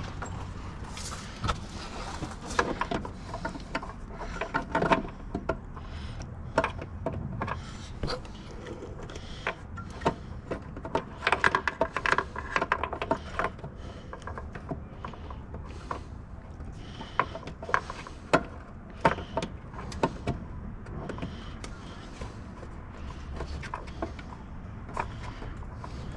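Irregular clicks, taps and small clatters of hands and tools working on car parts, busiest about halfway through, over a low steady hum.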